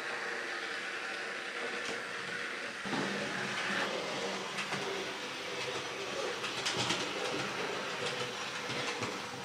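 Märklin HO-scale model locomotives running on 3-rail metal track: a steady electric motor hum with wheel clatter and light clicks over the rails. About three seconds in the sound turns deeper and fuller, with more scattered clicking.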